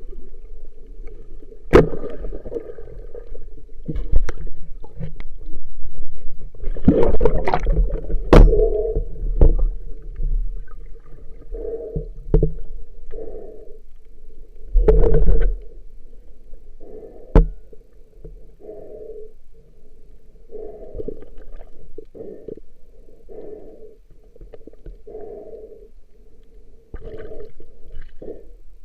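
Water sloshing and gurgling in uneven muffled swells, with a few sharp knocks, as heard by a camera in or at the surface of the sea.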